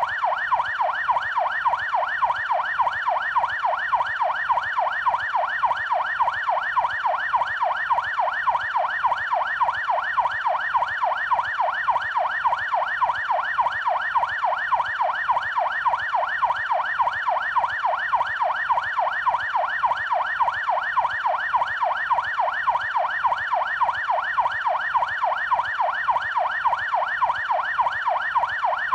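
Police siren on its yelp setting: a fast, even warble, the pitch sweeping up and down several times a second without a break.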